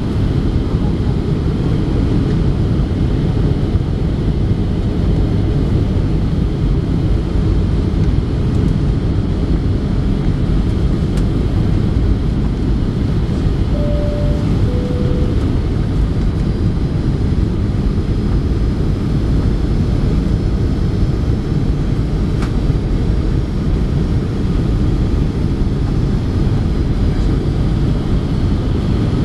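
Steady cabin noise of a Boeing 737-700 on final approach, heard from inside near the wing: the CFM56-7B turbofans running with airflow roar. About halfway through comes a short two-note falling chime.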